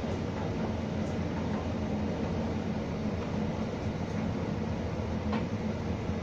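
Electrolux tumble dryer running on its cotton programme: a steady hum and rumble of the motor and turning drum, with a few faint ticks, the clearest a little past five seconds in.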